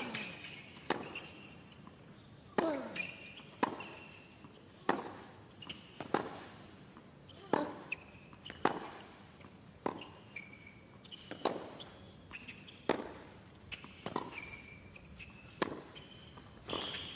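A long tennis rally on a hard court: sharp racquet strikes on the ball a little more than once a second, with fainter ball bounces and short high squeaks of shoes on the court between them.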